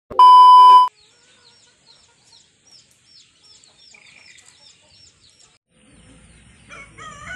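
A loud, steady beep lasting under a second near the start, then a small bird chirping over and over, two or three short calls a second. Near the end a low rumble comes in and a rooster starts to crow.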